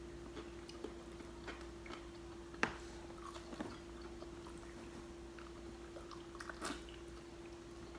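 Quiet eating: chewing and small clicks as fried bluegill is picked off its fine bones by hand and bitten, with two sharper clicks, one about two and a half seconds in and one near the end. A steady faint hum runs underneath.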